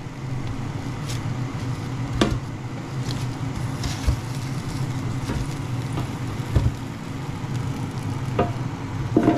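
Ninja dual-zone air fryer running with a steady fan hum, with a faint sizzling hiss from the hot jacket potatoes. Silicone-tipped tongs knock a few times against the potatoes and the basket as they are turned over.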